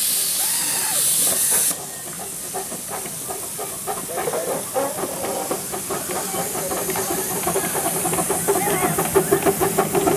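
7¼-inch-gauge miniature steam locomotive's open cylinder drain cocks hissing loudly, cutting off suddenly about two seconds in. A miniature steam train then runs by with rapid clicking from wheels and exhaust, growing louder toward the end.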